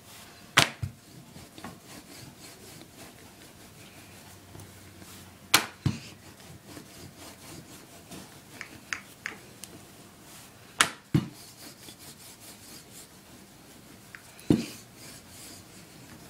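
Wooden rolling pin rolling out dough on a counter: faint rubbing, broken by four sharp wooden knocks spaced about four to five seconds apart.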